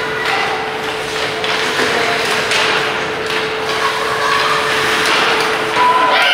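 Ice hockey play in a rink: repeated knocks of sticks and puck, with skates on the ice, over a steady hum.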